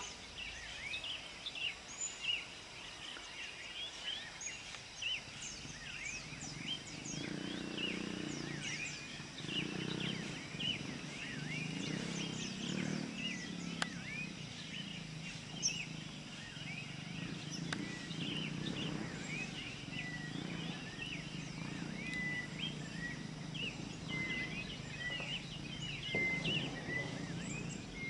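Many wild birds chirping and calling in a busy chorus, one of them repeating a short whistled note in the second half. A low rumble rises and falls beneath them from about seven seconds in.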